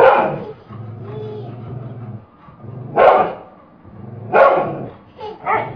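A dog barking: a handful of short, separate barks, the first right at the start and the rest bunched in the second half.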